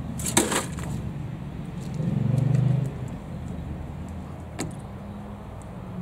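A frosted glass lamp tube and plastic medicine containers clatter against one another as they are pushed into a microwave oven's cavity, a quick cluster of clinks and rattles about half a second in. A single click follows a little past halfway. Under it runs a steady low hum that swells for about a second near the middle.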